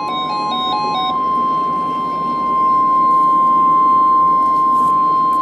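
NOAA Weather Radio 1050 Hz warning alarm tone: one steady, unbroken high tone over faint receiver hiss, the signal that a warning broadcast is about to follow. A short stepping electronic melody overlaps it for about the first second.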